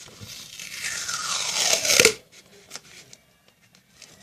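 Adhesive tape pulled off its roll: a tearing screech that grows for about a second and a half, its pitch sliding down, and stops abruptly about two seconds in, followed by a few faint clicks.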